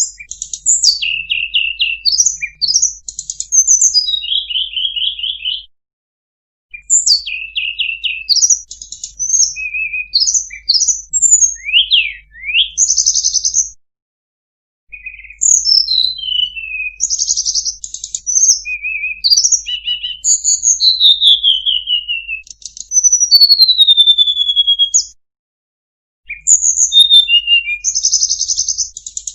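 Tledekan gunung singing a long, varied song of quick chirps, buzzy trills and falling whistles in phrases, with three short pauses.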